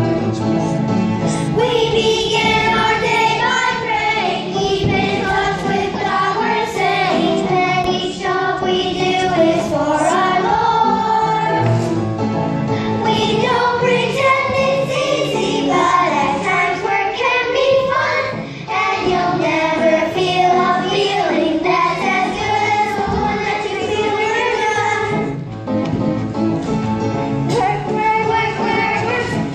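A group of children singing together with musical accompaniment.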